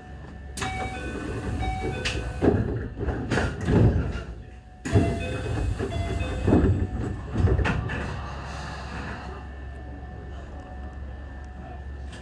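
Keio 8000 series electric train heard from the cab, with a steady low hum. From about half a second in there are two long stretches of hiss, broken by a series of sharp clunks and knocks, and the hiss dies down after about nine seconds.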